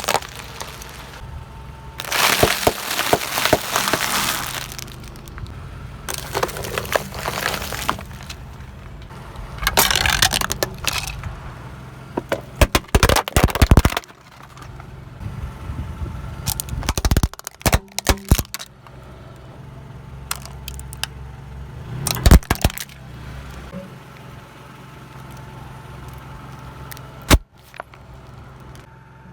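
Car tyres rolling over and crushing brittle objects: several bursts of cracking and crunching, a sharp single crack near the end, over a low steady engine idle.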